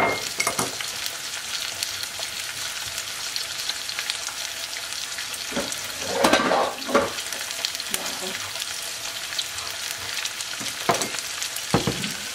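Tuna steaks searing in olive oil with onions in a nonstick skillet: a steady sizzle, broken by a few brief clatters, the loudest about six seconds in.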